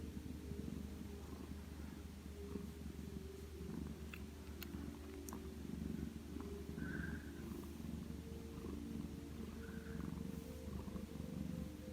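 A sleeping cat's low, rumbling purr, swelling and easing with each breath, which the owner half-jokingly takes for snoring.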